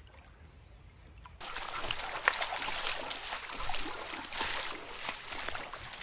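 Shallow creek water trickling and splashing over stones, with many small splashes, starting abruptly about a second and a half in after a quiet start.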